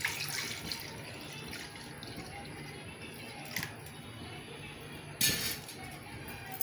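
Water poured from a steel bowl into an aluminium kadhai, the stream tailing off within the first second. A faint steady hiss follows, with a small click about three and a half seconds in and a short loud noise about five seconds in.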